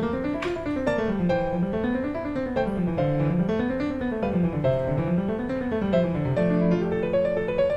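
Background piano music: quick runs of notes that climb and fall again several times over, settling on a held low note near the end.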